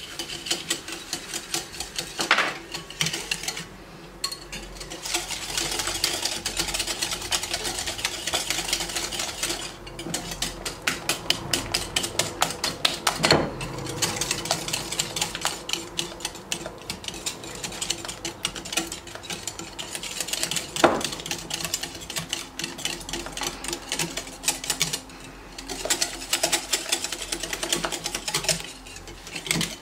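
A wire hand whisk beating egg whites with sugar in a glass bowl: rapid, rhythmic clicking and scraping of the wires against the glass, with a couple of brief pauses.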